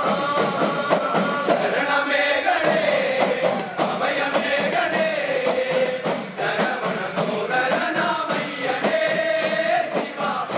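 A male chorus sings a Malayalam Ayyappa devotional chinthu song in unison. Many small hourglass hand drums (udukku) are beaten in a steady, fast rhythm.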